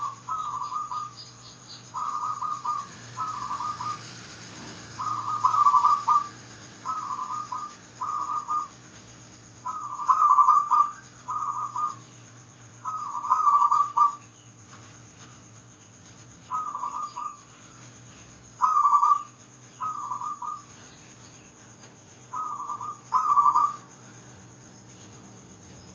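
Zebra dove (perkutut) cooing: short, whistle-like bursts of staccato notes repeated every second or two, with a few longer pauses between groups.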